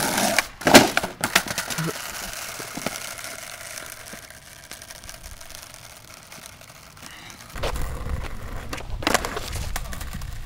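Skateboard wheels rolling on asphalt, then a sharp loud clack of the board hitting the pavement about a second in, followed by a few smaller clatters as the attempt to jump the box obstacle fails and the board skids away.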